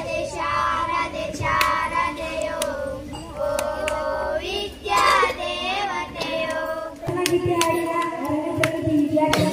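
A small group of young schoolgirls singing together into a microphone.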